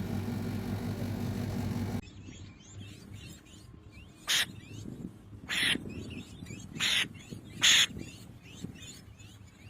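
A steady low engine-like hum for about two seconds, which cuts off abruptly. Then a bird gives four short, harsh calls, each a fraction of a second long and roughly a second apart.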